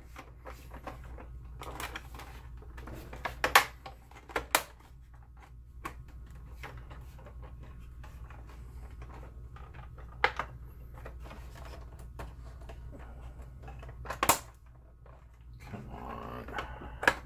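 A plastic projector housing being handled and its cover clips snapped into place. Scattered clicks and knocks of plastic on plastic, with a few sharper snaps, over a steady low hum.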